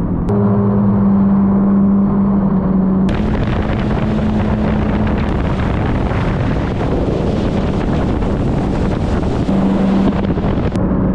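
Yamaha WaveRunner jet ski engine running with a steady hum. About three seconds in, a loud rush of water spray and wind takes over as the skis run at speed, easing near the end when the engine hum comes through again.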